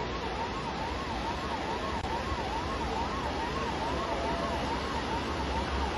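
Siren wailing up and down quickly, about twice a second, over a steady wash of heavy rain noise with a low rumble.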